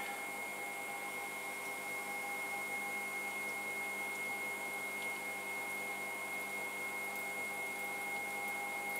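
Electric pottery wheel running at a steady speed: a constant motor hum with a thin, high steady whine.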